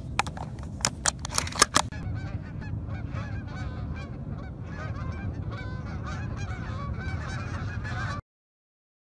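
A few sharp metallic clicks as shells are pushed into a shotgun's magazine, then a flock of Canada geese honking continuously in flight. The sound cuts off suddenly near the end.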